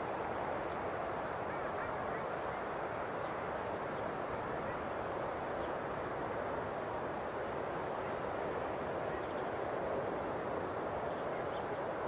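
Steady rush of sea surf breaking along the shore. Three short, high, slightly falling bird calls come through it, about four, seven and nine and a half seconds in.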